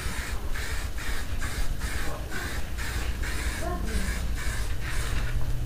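Aerosol spray paint can sprayed in short repeated bursts of hiss, about two a second, over a steady low rumble.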